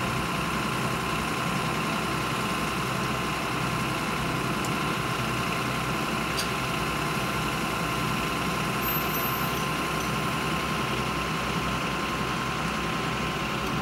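Engine of a crane lorry running steadily while its loader crane lifts a load.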